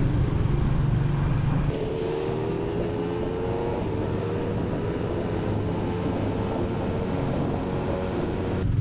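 Motor vehicle engine running with road noise. About two seconds in the sound changes abruptly to engine tones that climb slowly in pitch as it speeds up, and it changes abruptly again near the end.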